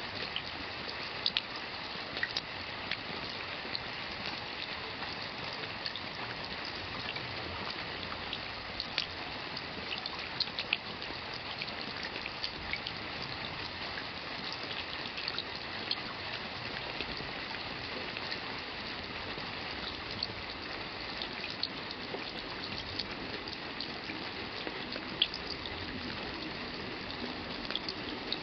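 Steady rain falling, an even hiss with many scattered single drops ticking sharply on top.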